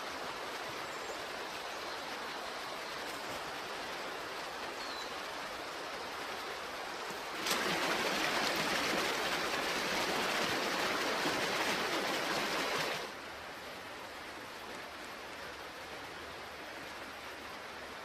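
Steady rushing of a shallow, rocky creek, much louder for about five seconds from about seven and a half seconds in, starting and stopping suddenly; a fainter steady hiss the rest of the time.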